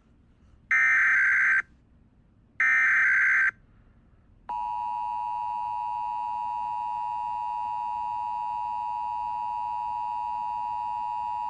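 Emergency Alert System test: two short bursts of SAME digital header data, each a harsh screech about a second long. About four and a half seconds in, the steady two-tone EAS attention signal starts and holds.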